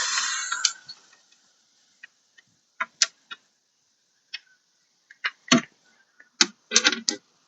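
Sharp, irregular clicks and ticks from a tool working the screws that mount a car door speaker. A dense noise carried over from just before stops within the first second.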